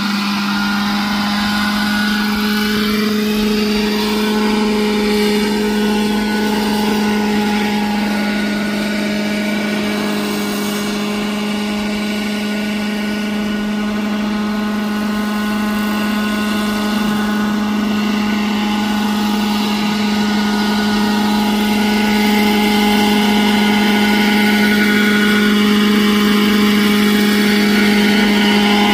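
Hirobo EC-135 scale RC helicopter running in flight: a steady low rotor drone with a higher whine above it that glides up and down in pitch near the start and again near the end.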